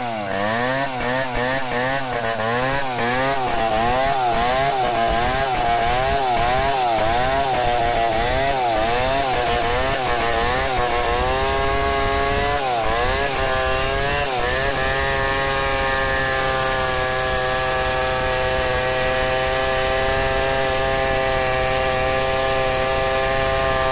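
Stihl 070 two-stroke chainsaw ripping lengthwise through an acacia mangium log. For the first ten seconds the engine speed rises and falls about once a second. It then climbs and holds a steady high pitch under load as the bar runs along the cut.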